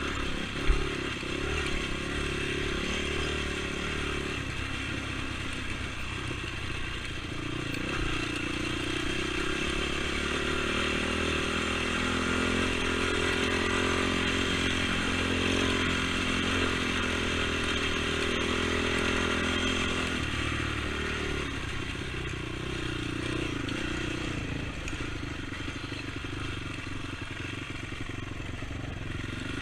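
ATV engine running under way, its engine speed rising about a quarter of the way in and falling back about two-thirds through. A single sharp knock sounds near the start.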